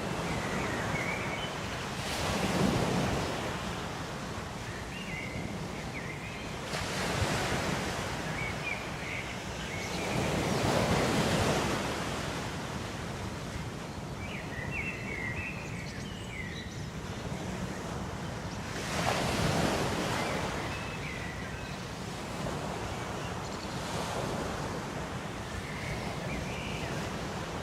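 Ocean surf: waves washing in and swelling loudly four times, then falling back to a steady hiss between them. Faint short chirps come through now and then.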